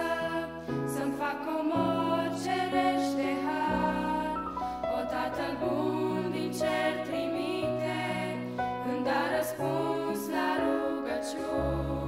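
Small group of women singing a hymn together in harmony over instrumental accompaniment, with low sustained bass notes that change every second or two.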